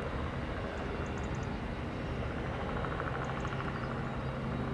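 Robinson R44 Raven helicopter running, its six-cylinder Lycoming piston engine giving a steady drone under a rapid, even rotor beat; the low hum and the beat grow stronger over the last couple of seconds.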